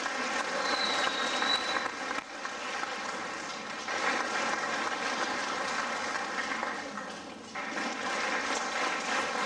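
Audience applauding, with a brief dip near the end before the clapping picks up again.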